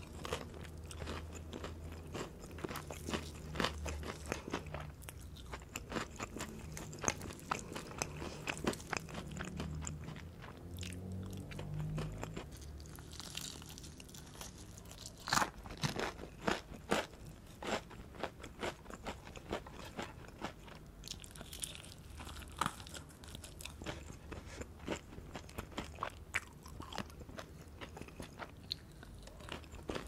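Close-miked chewing and biting of crispy breaded fried chicken: a dense run of small crunches and crackles from the crust, with a few louder crunches about halfway through.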